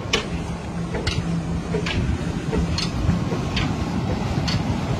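Old flywheel engine running a tubewell pump: a steady low hum with a sharp tick about once a second, over water gushing from the discharge pipes into the tank.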